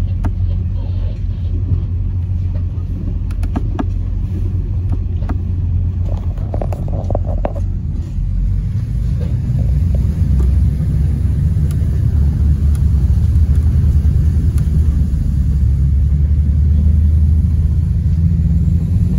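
Steady low rumble heard aboard a moving boat on choppy river water: engine and hull noise, growing somewhat louder about halfway through.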